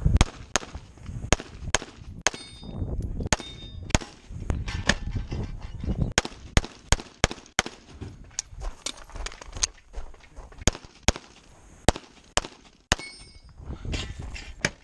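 Semi-automatic pistol fired in a fast string, single shots and quick pairs with short gaps between, as a competitor shoots a practical-shooting course. A high metallic ring follows some shots, from steel targets being hit, around three seconds in and again near the end.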